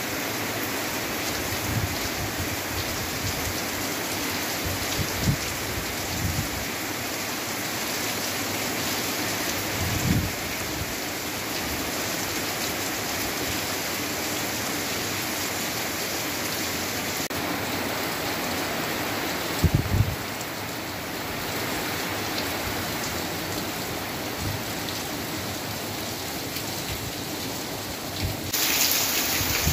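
Heavy rain pouring steadily onto corrugated roof sheeting overhead, a dense even hiss with a few brief low thumps. Near the end the sound changes suddenly to a louder, brighter rush of rain.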